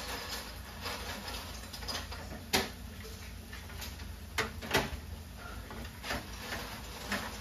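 Sharp clicks and knocks of utensils and dishes: one about two and a half seconds in and two close together near the five-second mark, with lighter clicking between them over a faint crackle.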